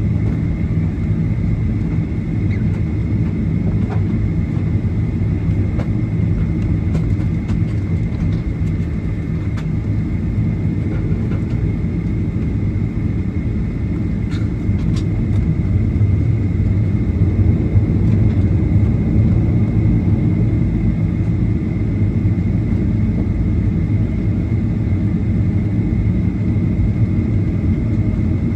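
Airliner engines and airframe heard from inside the passenger cabin while the aircraft taxis: a steady low rumble with a thin high whine and a few faint clicks and rattles, growing slightly louder about halfway through.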